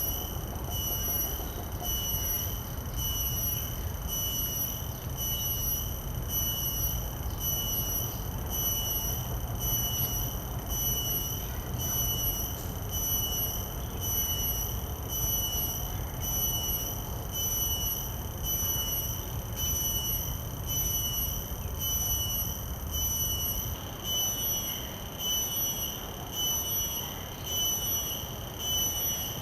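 Cicada calling: a shrill, high-pitched note pulsed in a steady, even rhythm a little more than once a second, over a low background rumble.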